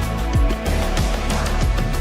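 Background music with a driving beat of heavy kick drums.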